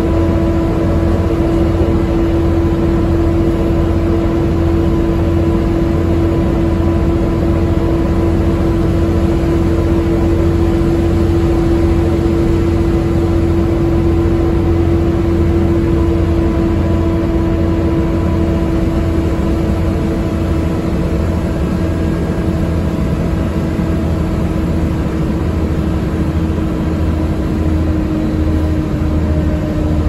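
Volvo B7TL double-decker bus driving at a steady speed, heard from inside on the upper deck: its six-cylinder diesel engine running with a steady whine that drops slightly in pitch near the end, over a low rumble.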